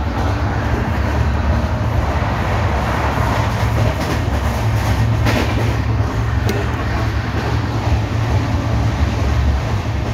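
Track sound inside an LHB passenger coach running at speed: a steady rumble of the wheels on the rails, from wheels the uploader calls flat, with a couple of sharp clicks midway.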